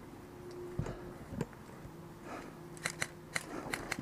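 Scattered sharp clicks and snaps of airsoft gunfire: a few single shots spread out at first, then coming closer together in the second half.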